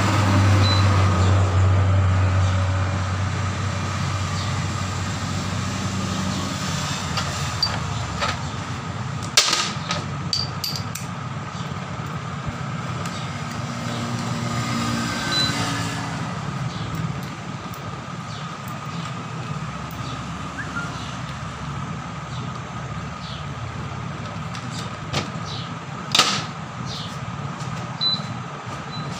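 Metal parts of an air impact wrench clinking and clicking a few times as they are handled during repair, over a steady background hum. A low rumble fades away over the first few seconds.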